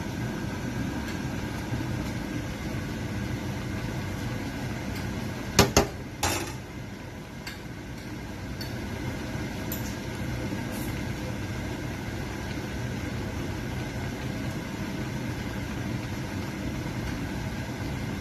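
A metal ladle knocking against a large cooking pan, three sharp clanks close together about six seconds in, over a steady low hum.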